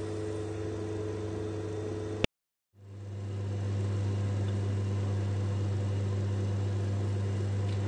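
A steady low hum with no speech. About two seconds in, a click and half a second of dead silence break it, and the hum comes back slightly louder.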